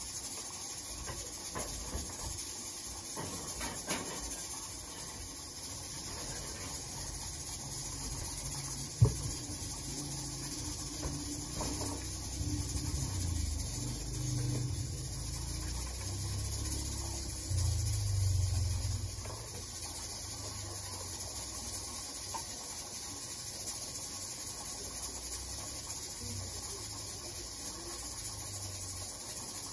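Kitchen handling noises over a faint steady hiss: a glass baking dish and jars being moved and set down, with a sharp click about nine seconds in and low bumps between about twelve and nineteen seconds.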